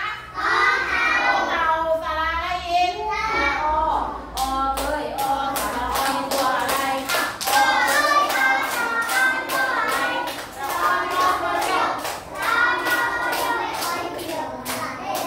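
A class of young children and their teacher singing an action song together. About four seconds in, steady rhythmic hand-clapping joins the singing and keeps the beat.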